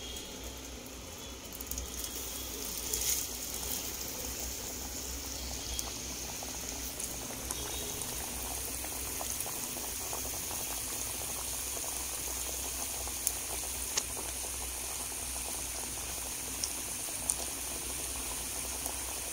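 Flour-coated chicken pieces deep-frying in hot oil in a kadai: a steady sizzle and bubbling that builds up about two seconds in, with a few faint pops.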